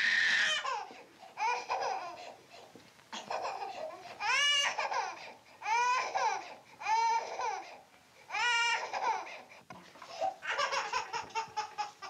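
A toddler crying: a run of short, high-pitched wails, one after another.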